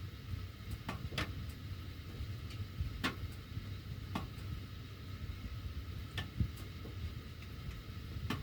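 Sheet-metal heating ductwork ticking and popping at irregular intervals while the heat is on, about seven sharp clicks over a steady low rumble of the furnace blower's air.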